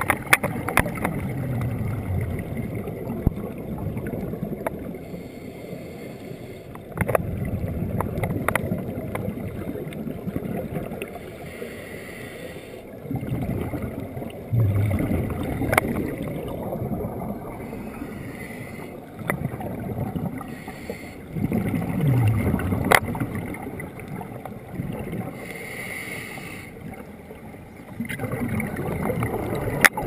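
Muffled underwater rush of moving water heard through a camera's waterproof housing, swelling every six to eight seconds as a scuba diver's exhaled bubbles rumble past. A few sharp knocks on the housing.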